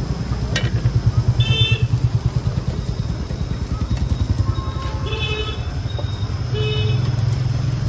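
Roadside traffic: a motorcycle engine runs close by with a low, fast throb, and short high-pitched horn toots sound three times, about a second and a half in, around five seconds, and near seven seconds.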